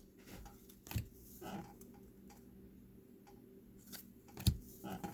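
Topps WWE trading cards being handled and flipped through by hand: a few scattered soft snaps and slides of card stock, the sharpest one near the end.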